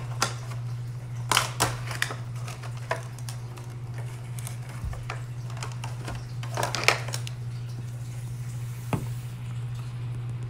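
Cardboard box and plastic window tray of a Funko Pop vinyl figure rustling and clicking as the figure is slid out of its packaging, with a few sharp clicks and crinkles about 1.5 s and 7 s in. Near the end a single sharp knock comes as the figure is set down on the wooden table.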